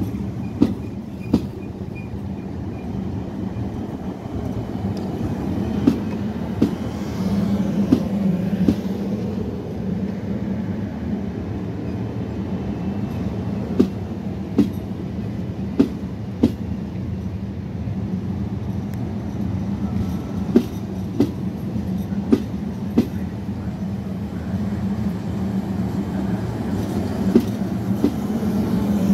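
Trenitalia Hitachi Rock double-deck electric train running past along the platform: a steady rumble and hum, with sharp wheel clacks that mostly come in pairs about two-thirds of a second apart, recurring every few seconds.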